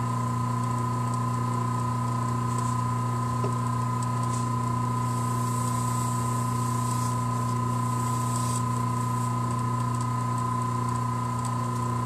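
Wood lathe running steadily at its lowest speed setting: a constant low hum with a thin, steady whine above it.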